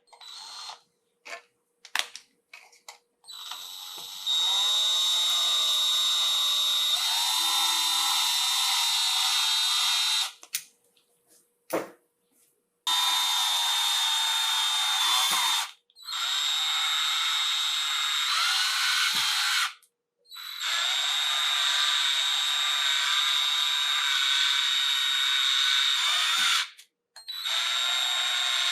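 Electric drill-driver running in about five long bursts of several seconds each, with a steady high whine, driving in the screws that fix a smart light switch into its wall box. A few light clicks come before the first burst.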